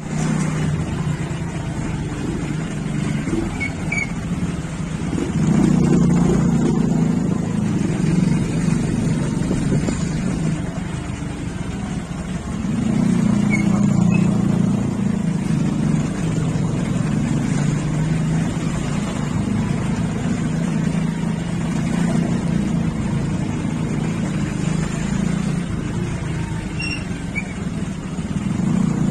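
Motorcycle engine running steadily while riding, heard from the bike itself, getting louder about five seconds in and again around thirteen seconds as it speeds up.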